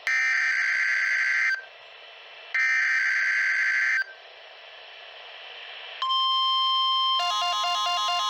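NOAA Weather Radio alert test: two harsh, buzzing SAME digital header bursts, each about a second and a half long and a second apart, then after a short pause the steady warning alarm tone begins. About a second after the tone starts, a stepped, warbling electronic alert pattern joins it.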